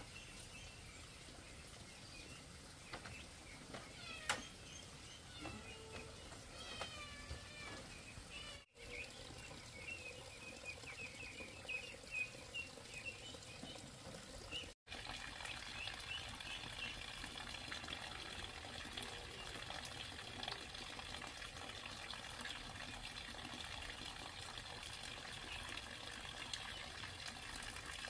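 Water running and trickling steadily, with small birds chirping over it in the first half. The sound drops out abruptly for an instant twice, and after the second break the background is a denser, steady rush.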